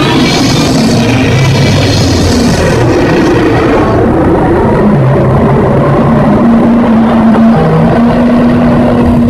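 Loud, low, rumbling kaiju sound effect, with held deep tones that shift in pitch under a rough, grinding noise. It is brighter and harsher for the first few seconds.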